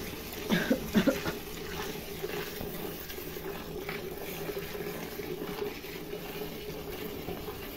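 Cow being milked by hand: streams of milk squirting into a steel bucket in a steady, splashing hiss. A few louder short sounds come between about half a second and just over a second in.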